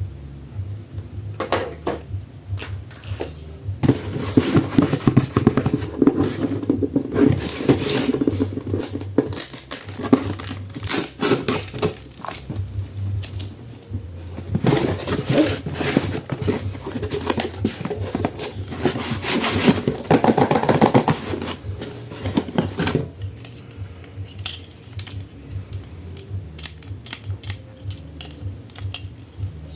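Plastic toy packaging being handled and opened: crinkling and rustling with many small clicks, in two long busy stretches separated by a short pause, with sparser clicks before and after.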